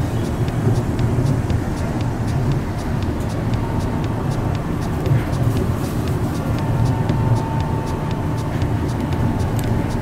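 Yokohama Seaside Line rubber-tyred automated guideway train running along its concrete guideway, heard from inside the front car: a steady low rumble with frequent light clicks. A faint steady whine comes in over the second half.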